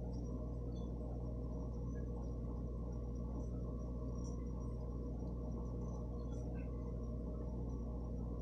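Steady low electrical hum of room tone with a faint high whine, unchanging throughout, with a few tiny ticks.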